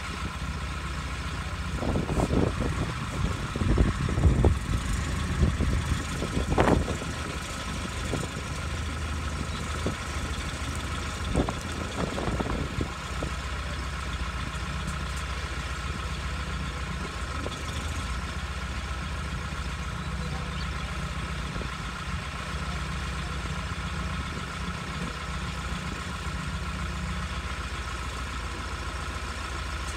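Truck crane's engine idling steadily while it holds a suspended load. Irregular louder noises come and go in the first dozen seconds.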